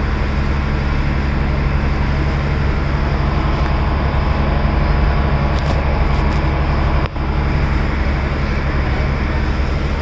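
Passenger boat's engine running with a steady low drone under a constant rush of water and wind. The sound briefly drops out about seven seconds in.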